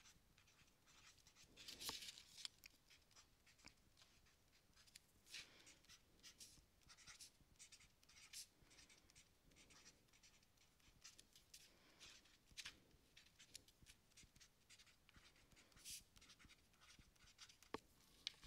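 Faint writing on a sheet of paper: short, irregular scratching strokes with brief pauses between words.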